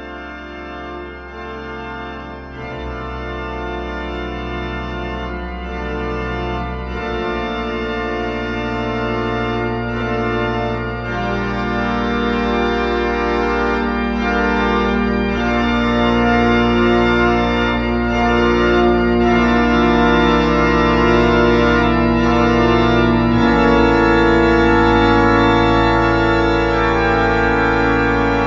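Background music of slow, held chords that grow steadily louder, with a deep bass note coming in about three seconds in. The music cuts off sharply at the end.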